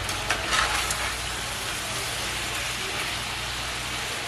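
Diced potatoes sizzling steadily as they fry in a cast-iron skillet, with a few brief scrapes of a metal spatula against the pan in the first second.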